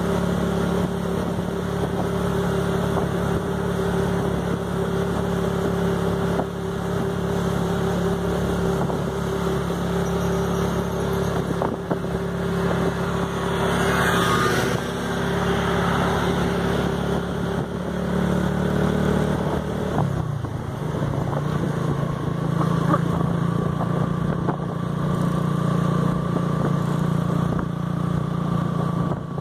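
Motorcycle engine running at a steady cruise, heard from on board with road noise. The engine note drops about two-thirds of the way through as the throttle eases, then holds steady again at the lower pitch.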